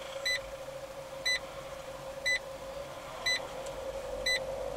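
A short electronic beep repeating about once a second, over the steady hum inside a slowly moving car.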